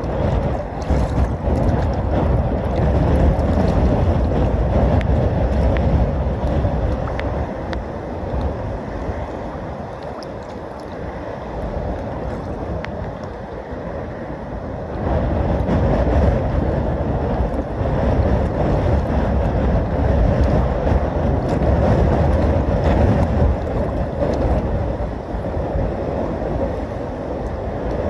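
Ocean surf washing in and out, with wind buffeting the microphone in a heavy low rumble; it eases for a few seconds in the middle and swells again about halfway through.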